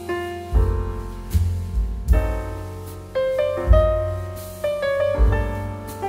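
Background piano music: struck notes that ring and fade, over deep bass notes.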